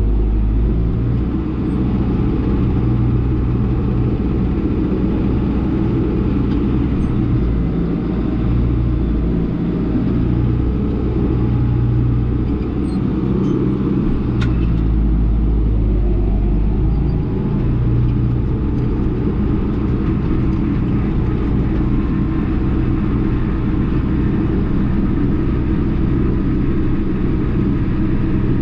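Case 1090 tractor's diesel engine running steadily under load, with a constant low drone, heard from inside the cab while spraying.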